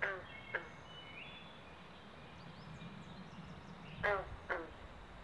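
Frogs calling from a pond: two pairs of short, loud croaks, each dropping in pitch, the two calls of a pair about half a second apart. One pair comes at the start and the other about four seconds in, with faint bird notes in between.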